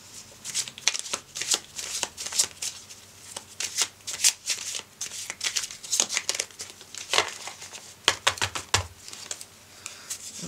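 A deck of playing cards being shuffled by hand: an irregular run of quick, light flicks and slaps of cards against one another.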